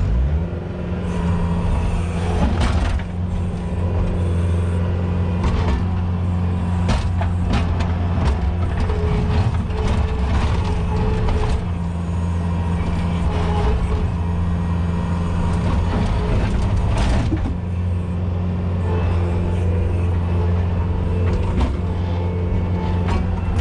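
Skid steer engine running steadily, with repeated knocks and clanks of metal and broken concrete as the machine works among the slabs; clusters of heavier knocks come about 2–3 seconds in, around 7 seconds and about 17 seconds in.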